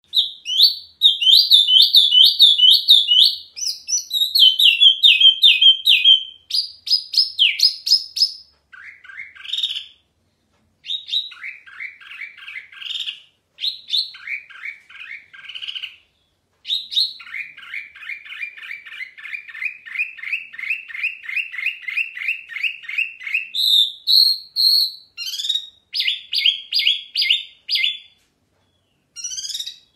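Caged wambi mini songbird singing continuously, loud and clear: phrase after phrase of rapidly repeated high notes, each phrase on a different pitch, broken by a few short pauses.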